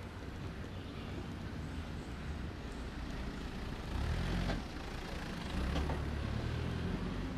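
Street traffic noise with a small dump truck's engine running close by; its low rumble swells about four seconds in and again a little later.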